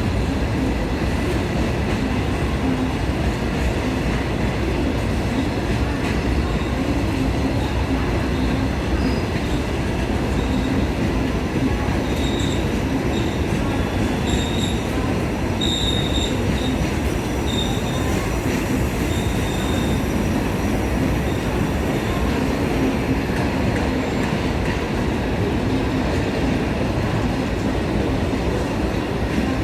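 A train running on the track with a steady, loud rumble. In the middle stretch, high-pitched wheel squeal comes and goes several times.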